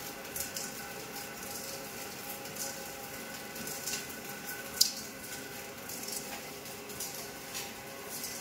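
Film slitting-rewinding machine running on a roll of 36-micron clear polyester film: a steady motor hum with irregular crackling ticks throughout, and one sharp click about five seconds in.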